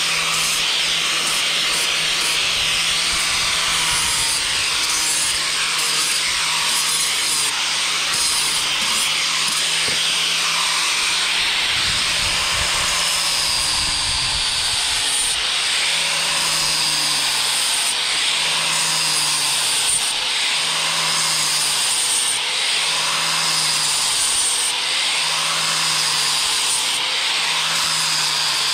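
Electric angle grinder with a sanding disc running under load, the abrasive rubbing steadily across a fir board over the motor's whine. In the second half the whine dips and recovers in a regular rhythm, about every second and a half.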